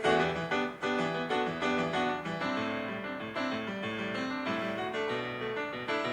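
Music: a piano passage from a pop ballad, chords and melody notes struck in turn, with no singing.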